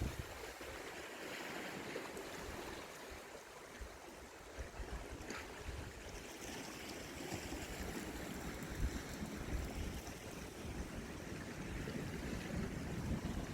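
Wind buffeting the microphone in uneven low gusts over a steady wash of sea water.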